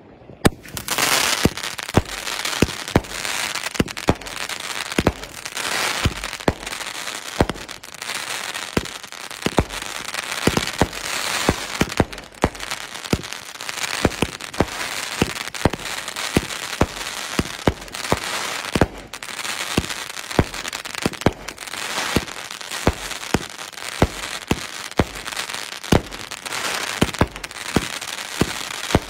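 Fire Hawk "Ferocious" 36-shot 500-gram cake firework going off, starting about a second in: a steady string of launch thumps and bursting reports, about one or two a second, over a constant crackle from the stars' crackling trails.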